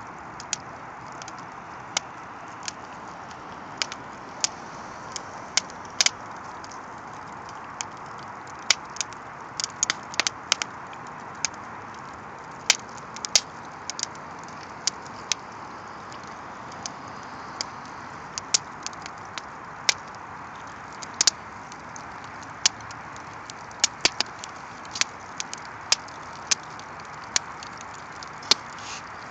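A canvas painting on its wooden stretcher frame burning: fire crackling, with sharp, irregular pops over a steady hiss.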